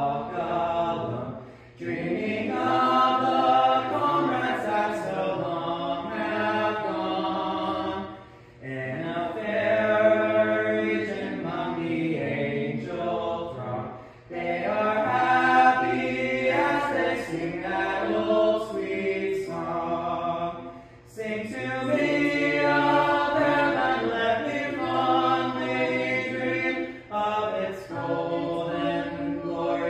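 A church congregation singing a hymn together in several voice parts, in sung lines of about six seconds with short breaks between them.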